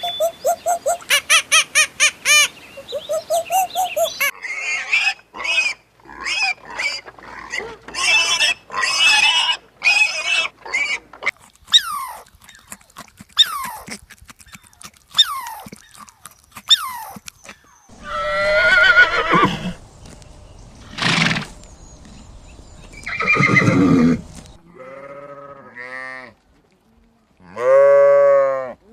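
A series of different animal calls: rapid repeated chirps at first, then short cries, louder rough calls past the middle, and pitched calls near the end.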